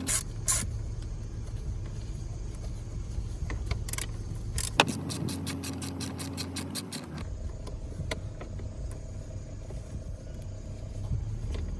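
Scattered clicks, knocks and light rattles of hand work on a car's glovebox latch and tools, over a steady low rumble. The sharpest knock comes a little under five seconds in, followed by a quick run of small clicks.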